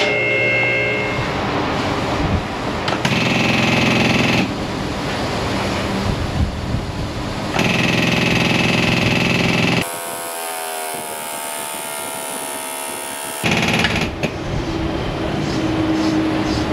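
Auto shop work noise: two bursts of an air impact wrench, each running a couple of seconds, as a front brake job is started. Near the middle is a stretch of a few seconds of hiss with wavering tones.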